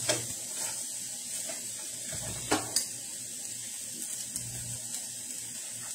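Sausage and cabbage sizzling steadily in a skillet, with a spatula stirring at the start and two sharp clinks against the pan about two and a half seconds in.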